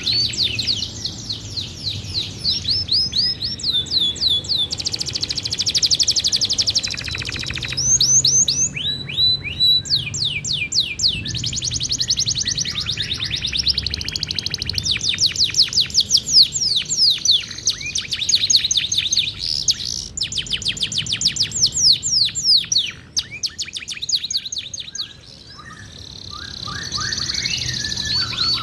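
Canary singing a long, vigorous song of fast rolls and trills: rapid runs of repeated downward-sweeping notes that change speed from phrase to phrase. There is a short lull about 23 seconds in.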